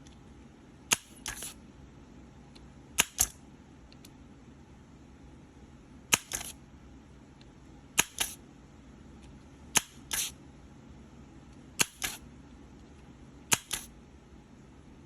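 Solder sucker (desoldering pump) working solder joints off a circuit board, desoldering the diodes. Six times, about every two seconds, a sharp click comes, followed a moment later by one or two softer clicks.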